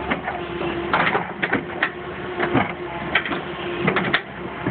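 Tracked hydraulic excavator's diesel engine running steadily while its steel bucket knocks and scrapes against a large stone, with several sharp knocks in the second half.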